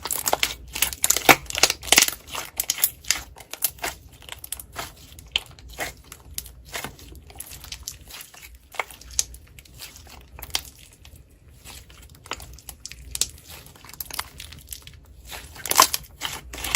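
Slime being squeezed and pressed by hands, giving irregular crackling, popping clicks, thickest in the first two seconds and again near the end.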